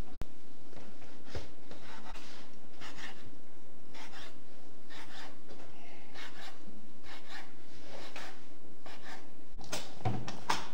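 Food being worked by hand on a wooden board: irregular scraping and light knocks.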